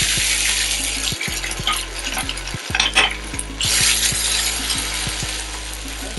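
Fresh rice noodles dropping into a hot frying pan and sizzling as they fry and are pushed around. There are a few sharp clicks around the middle, and the sizzle swells again a little later before easing off.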